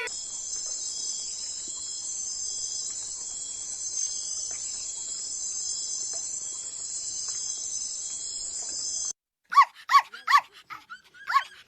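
A steady high-pitched buzzing drone that cuts off about nine seconds in, followed by a dog giving a run of short, high yips.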